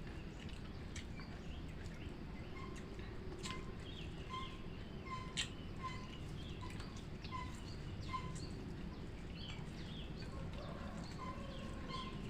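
Birds chirping over a steady low background hum. From about three seconds in, one bird repeats a short note roughly twice a second.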